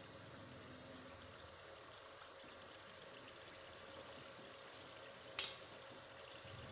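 Badusha dough rounds deep-frying in hot oil in a steel kadai: a faint, steady sizzle with light crackles. There is a sharp click about five and a half seconds in.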